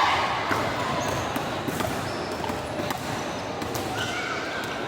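Indoor volleyball game sounds: sharp knocks of the ball being hit and landing, brief high squeaks of sneakers on the court floor, and a background of players' and spectators' voices.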